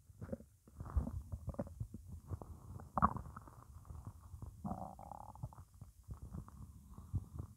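Hungry human stomach gurgling and rumbling: a quiet run of small, irregular gurgles and pops. Louder ones come about one and three seconds in, and a longer, drawn-out gurgle about five seconds in.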